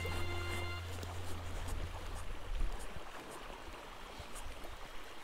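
River water flowing and rippling past the bank, an even rushing noise with scattered faint ticks; a backing music track fades out within the first second or two.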